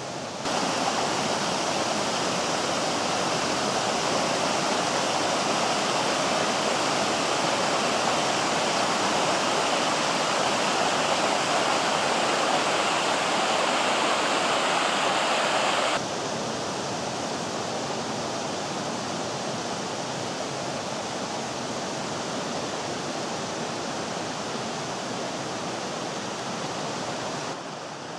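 Water pouring over a small cascade in a mountain stream: a steady, loud rush that drops suddenly to a quieter, duller rush about halfway through.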